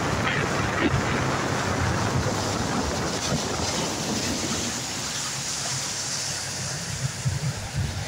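A boat under way on a river: wind buffeting the microphone and water rushing along the hull, over a steady low engine hum. Past the middle the water hiss gets brighter while the hum eases a little.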